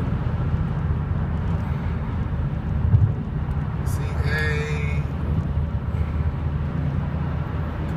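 Steady road and engine noise heard inside a moving car's cabin at highway speed, a low rumble with a hum. A brief higher-pitched sound comes about four seconds in.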